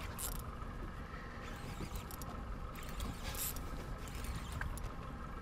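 Wind buffeting the microphone in a steady low rumble, under a faint steady hum and a few light ticks.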